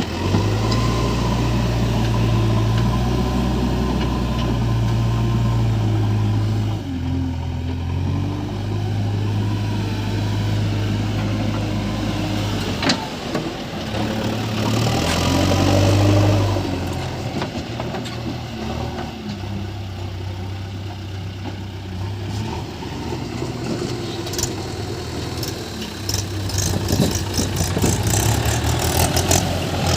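Diesel engines of a backhoe loader and tractor running, with the engine speed rising and falling several times as the machine works.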